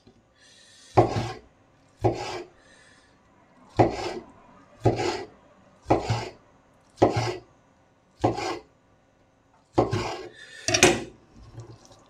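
Kitchen knife cutting a block of deep-fried tofu (atsuage) on a wooden cutting board. There are about nine strokes, roughly one a second, each a short cut ending in a knock of the blade on the board.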